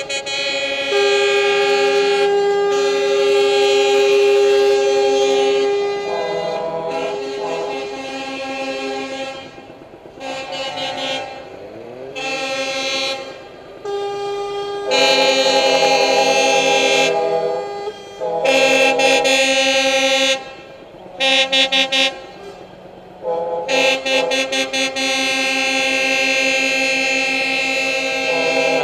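Truck air horns blowing chords of several notes, in long blasts and, a little past halfway, a run of short toots. A rising tone sounds briefly under them near the middle.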